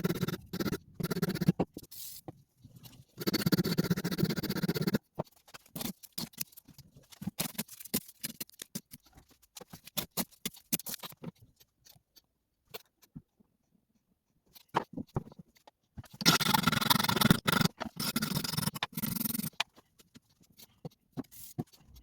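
Hand scraping and rubbing on the metal of a pair of garden shears, in two longer stretches, with scattered clicks and taps between them.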